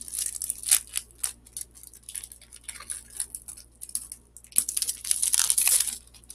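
Foil wrapper of a Pokémon trading card booster pack crinkling in the hands and being torn open: scattered sharp crackles, with a denser, louder stretch of tearing and crinkling about four and a half seconds in that lasts about a second.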